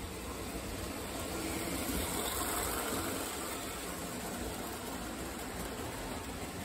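Toy O-gauge electric train, a plastic steam locomotive pulling tank cars and a caboose, running on three-rail tin-plate track: a steady rumble and rattle of wheels and motor that swells as it passes close, about two to three seconds in, then eases.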